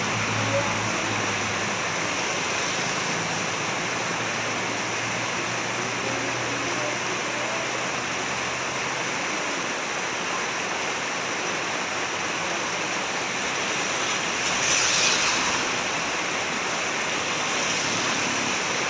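Steady rain falling, a dense even hiss with no let-up, swelling briefly about fifteen seconds in. A faint low hum underneath fades out about halfway through.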